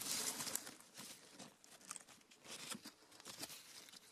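Faint rustling and small scattered crackles of a hand handling a bunch of grapes and the vine leaves around it.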